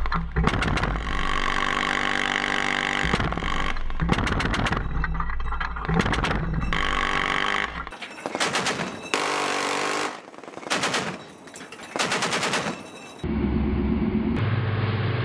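Ship-mounted machine gun firing long, rapid bursts for about eight seconds, then several shorter bursts with gaps between them. About 13 seconds in, the sound cuts to a boat's engine running steadily.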